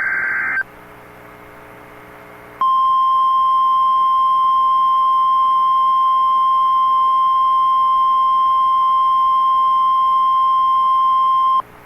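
Emergency alert signal for a severe thunderstorm warning. It opens with the tail of a short buzzy data burst, followed by a pause of about two seconds. Then comes a single steady alert tone of about 1 kHz, the NOAA Weather Radio warning tone, held for about nine seconds and cutting off just before the voice announcement.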